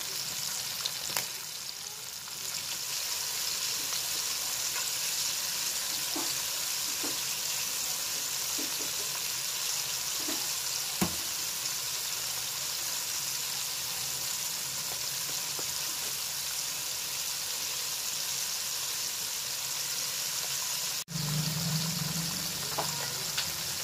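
Cornstarch-dredged chicken pieces deep-frying in hot oil in a wok: a steady sizzle with scattered small pops. A low hum joins in near the end.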